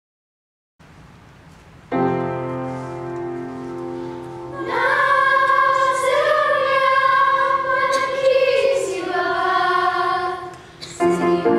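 Middle school choir singing together, holding long sustained notes, with a piano accompaniment. A piano chord sounds about two seconds in and fades, and the voices come in a couple of seconds later.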